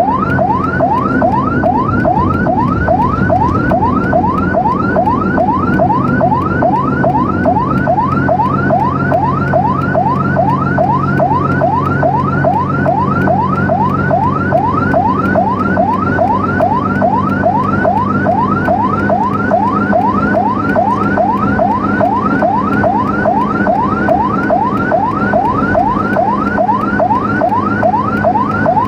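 Emergency vehicle siren in fast yelp mode: each cry sweeps quickly upward, about two a second, without a break. Under it runs a steady low drone.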